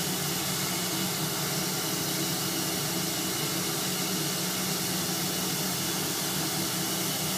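Shop vac running steadily: an even rushing hiss over a low hum as it pulls suction through a hose to a syringe tip.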